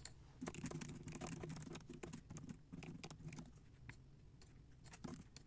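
Faint typing on a computer keyboard: a quick run of light key clicks that thins out in the second half.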